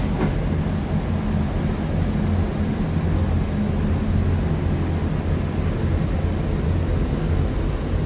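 Iguazu Falls: the steady, deep rumbling rush of water pouring over many cascades and through the rapids below.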